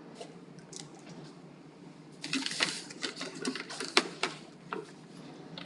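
A quick, irregular run of light clicks and taps starting about two seconds in and lasting under three seconds, over a steady low room hum.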